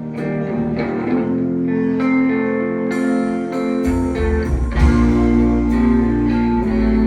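A live band playing an instrumental intro led by guitar; a bass comes in about four seconds in, with sharp percussive strokes over it.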